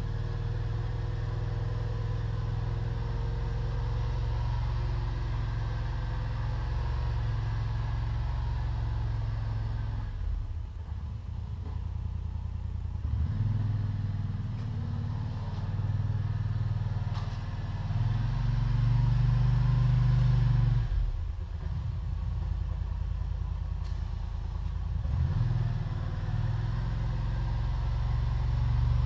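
Small garden tractor engine running while plowing snow with a front blade. It runs steadily, its speed and loudness rising and falling several times as the load changes, loudest about two-thirds of the way through.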